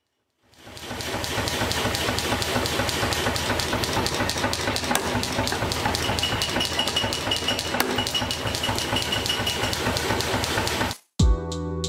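A workshop machine running steadily with a fast, even clatter and hiss, fading in at the start and cutting off suddenly near the end.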